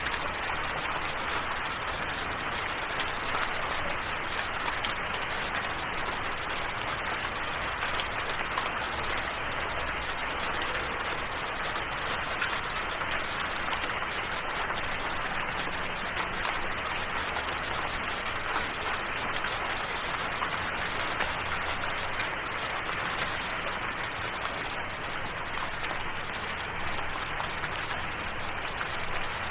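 Steady rain falling, an even hiss of many drops that holds constant throughout.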